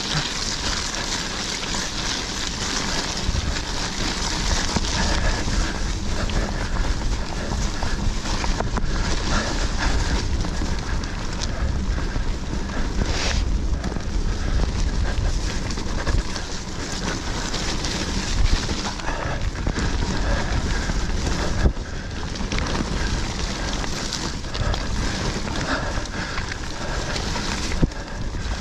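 Wind buffeting the camera's microphone over the rumble and rattle of a mountain bike ridden down a dirt trail, with a few sharp knocks.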